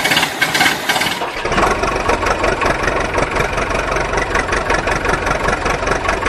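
Engine sound effect laid over toy construction vehicles: a rougher, noisier stretch for about the first second, then from about a second and a half in a steady engine running with a low hum and a fast, even chug.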